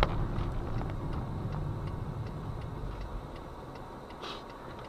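A car's indicator relay ticking evenly, roughly three ticks a second, over the steady low rumble of the car running, heard inside the cabin.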